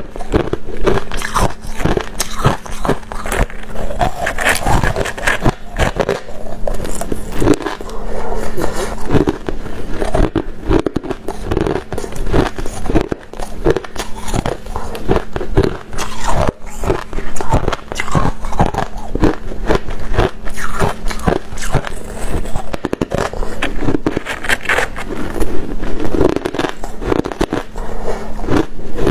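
Ice being bitten and chewed close to the microphone: a dense, irregular run of sharp crunches and crackles. A steady low hum sits underneath.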